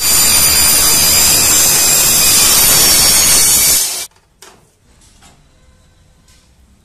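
Compound miter saw cutting through a rectangular aluminium tube: a loud, steady high-pitched screech for about four seconds that cuts off suddenly. A few light knocks follow.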